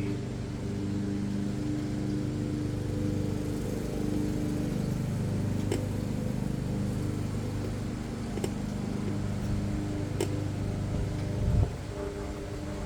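Steady low machine hum, with a few sharp clicks spaced a few seconds apart and a knock near the end.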